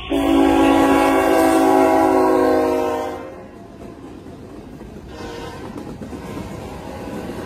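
Locomotive air horn on a CSX GE ET44AC sounding one long blast of several notes together, cutting off about three seconds in. Then the steady rumble of the passing freight train's trailing locomotives and cars.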